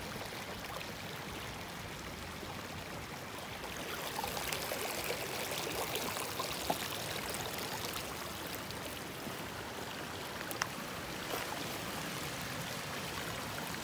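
A small, shallow meadow creek running steadily, a continuous babble of flowing water, with a couple of brief clicks about halfway through.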